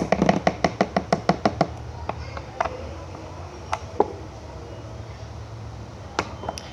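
A quick run of about a dozen sharp taps, about seven a second, then a few scattered knocks: a utensil striking a container while slime is stirred.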